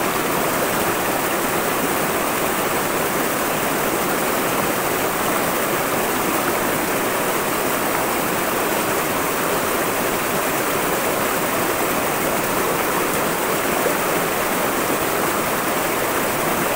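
Shallow rocky river flowing fast over stones in a riffle: a steady, unbroken rush of water heard close by.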